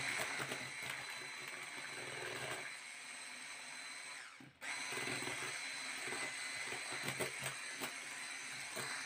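Electric hand mixer whisking eggs and sugar in a stainless steel bowl: a steady motor whine with the beaters churning through the batter. It cuts out for a moment about halfway through, then runs on again.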